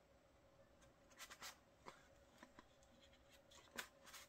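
Faint rustling of thick photobook pages being turned by hand, a handful of short, quiet rustles with the loudest near the end.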